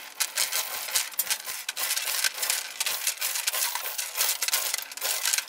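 Steel chain and hook clinking and rattling as they are handled, a dense, irregular run of small metallic clicks.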